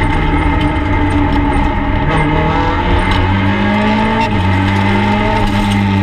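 Peugeot 208 R2 rally car's four-cylinder engine, heard from inside the stripped cabin, running hard at high revs on a special stage. The revs climb through the middle and drop just after four seconds.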